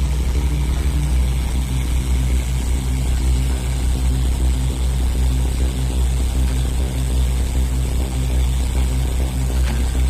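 Heavy diesel engine of a truck-mounted borewell drilling rig running steadily with a loud, even low drone.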